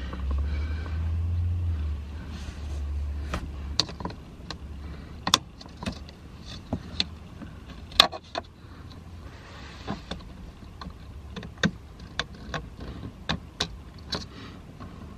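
Hands handling and pressing adhesive-backed carbon fiber trim onto a car's plastic door panel: a string of irregular sharp clicks and taps. A low rumble runs under the first three seconds.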